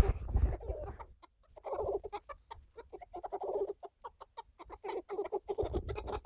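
Chickens giving excited food calls, clucking in repeated bouts while they eat, with many short sharp taps mixed in.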